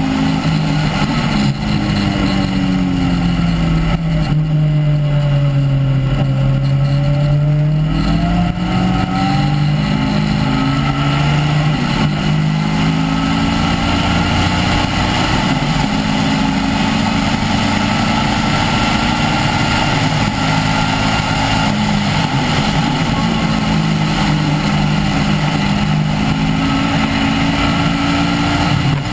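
Caterham R300's un-silenced engine on track, heard from the open cockpit: its note drops while slowing for a corner about five seconds in, then climbs again under acceleration and keeps rising and falling through the following bends, over a steady rush of wind and road noise.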